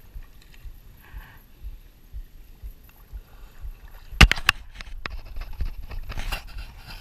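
Shallow estuary water sloshing over a low wind rumble. About four seconds in comes one sharp, loud knock followed by a few quick clicks, then a stretch of busier splashing and rustling.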